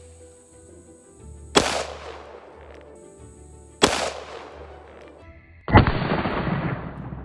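JTS M12 AR semi-automatic 12-gauge shotgun firing slugs: three sharp blasts about two seconds apart. The third is duller and rings on longer than the first two.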